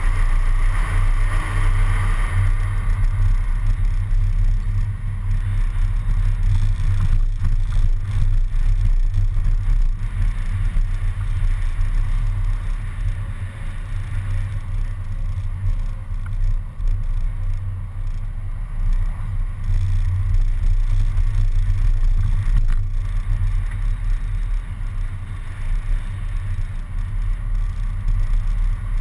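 Steady low rumble of a city bus driving along, with wind and road noise, picked up by a camera mounted on the outside front of the bus.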